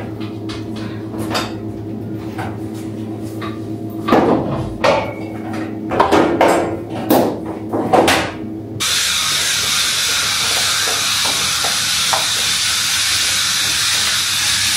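Clattering knocks of metal kitchen equipment being handled, a few strikes in quick succession, over the steady hum of kitchen appliances. About nine seconds in this gives way suddenly to a steady hiss.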